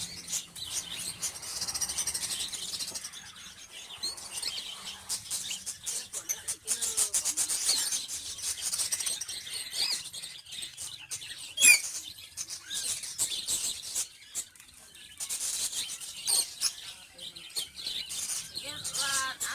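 Baby cockatiel chicks begging for food while being hand-fed: harsh, raspy food calls in repeated bouts, with one loud sharp chirp about twelve seconds in.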